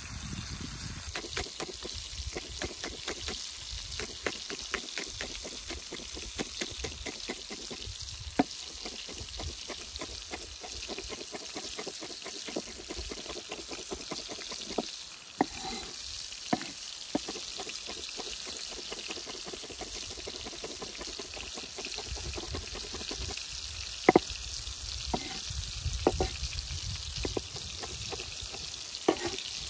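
Chef's knife chopping green onions on a wooden cutting board: rapid, even knocks, thinning out later with a few louder knocks near the end. Under it, a steady sizzle from a pan frying over an open fire.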